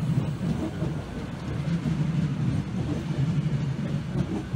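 Renfe Cercanías Civia electric commuter train rolling past, a steady low rumble from its running gear with no distinct wheel clicks.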